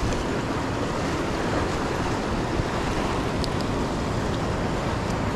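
Steady wash of ocean surf breaking on jetty rocks, with wind noise on the microphone.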